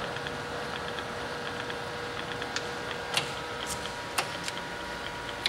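Mori Seiki MS-850 engine lathe running under power cross feed: a steady gear whine with light regular ticking. In the second half, several sharp metallic clicks as the cross-feed lever is disengaged and re-engaged, with the whine's pitch mix changing slightly after the first click.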